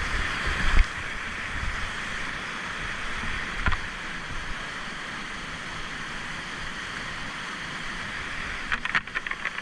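Rushing water of a fast mountain river, a steady hiss of whitewater. Sharp knocks come about a second in and about four seconds in, and a quick run of clicks near the end.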